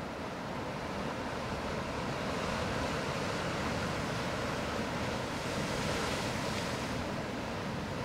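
Pacific Ocean surf breaking and washing over coastal rocks: a continuous rushing of water that swells a little a couple of seconds in and eases slightly near the end.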